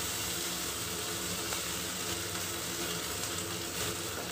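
Steady sizzling hiss from a kadai heating on a gas stove.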